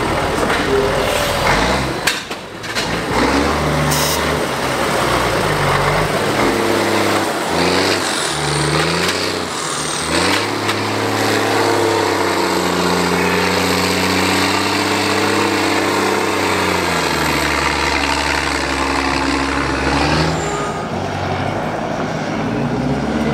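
Heavy diesel engines of trial trucks revving hard and labouring on steep dirt slopes, the pitch rising and falling again and again as the throttle is worked, with a brief break about two seconds in.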